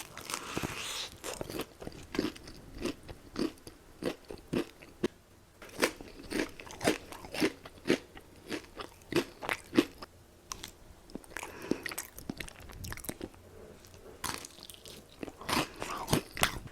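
Close-miked chewing of crunchy fried chicken: a steady run of crisp crunches, about two a second, with a couple of short pauses.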